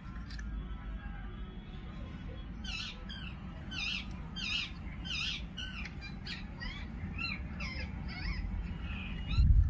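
A bird calling repeatedly: a run of short sweeping chirps, about two a second, starting about three seconds in, over a steady low background rumble.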